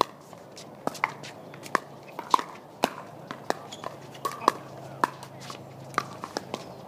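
Pickleball rally: a string of sharp pops from paddles striking the hollow plastic ball and the ball bouncing on the hard court, about two a second at uneven spacing.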